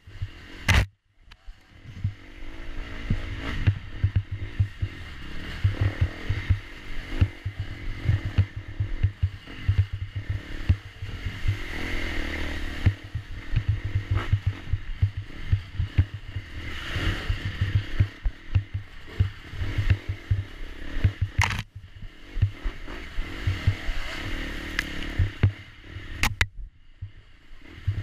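Off-road dirt bike engine running at changing revs, heard from a camera riding along, with irregular knocks and clatter over rough ground. The sound drops out briefly about a second in and again near the end.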